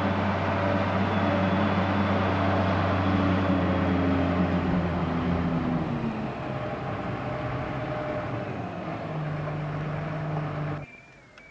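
Diesel engine of a Moxy articulated dump truck running as it drives away, loud and steady at first, its note dropping and fading about halfway through. The sound cuts off abruptly near the end.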